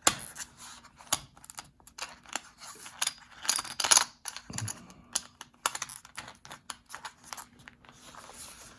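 Irregular small clicks and rustles of a coin presentation set being handled, the coins being pressed back into their holder.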